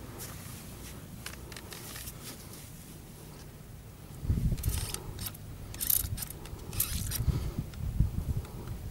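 Short hissing bursts of a hand sprayer spraying oil spill dispersant onto an oil slick on water. From about four seconds in, loud irregular low rumbling joins the hisses.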